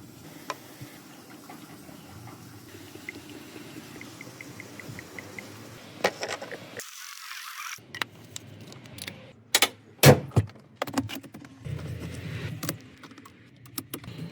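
Handling sounds around a car: a short run of quick light ticks, then several sharp clicks and knocks, with a steady low hum setting in near the end.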